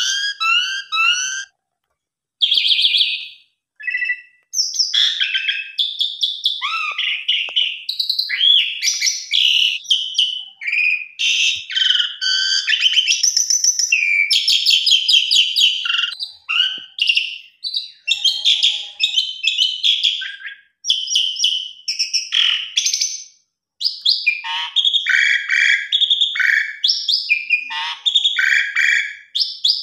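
Pied starling (jalak suren) singing a long, varied song of whistles, chattering rattles and squeaky notes, with imitations of other birds' calls worked in. There are a couple of short pauses in the first few seconds, then the song runs on almost without a break.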